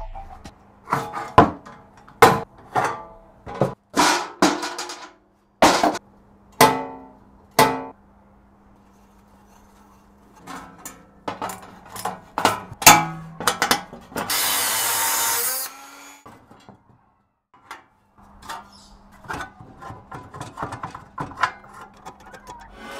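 Hand tools working on a steel tricycle during disassembly: a screwdriver and other tools knocking and clicking against the painted steel parts in a string of separate sharp strikes. A noisy burst lasting about a second and a half comes a little past the middle, and a low steady hum runs under much of it.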